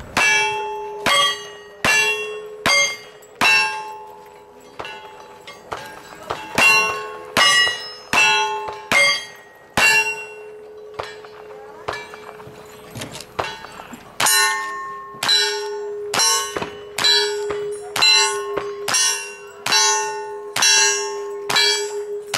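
Strings of gunshots, each followed by the ringing clang of a hit steel target, typical of a cowboy action shooting stage. Two strings of five shots about a second apart, then after a pause of a few seconds a steady string of about ten more.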